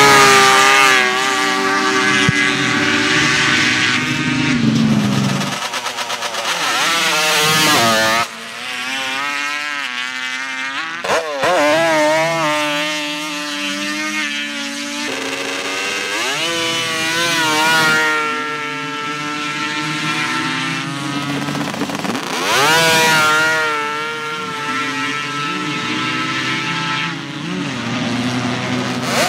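Sand drag ATV engines at wide open throttle, launching hard and pulling down the strip, the engine pitch climbing steeply again and again. Several runs follow one another, each ending in a sudden cut.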